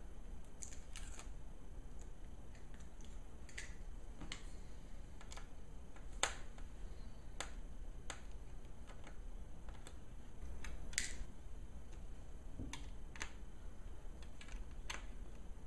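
Small screws being unscrewed from a laptop screen panel and handled: scattered light clicks and ticks, a sharper click about six seconds in and a short scratchy scrape about eleven seconds in, over a faint low hum.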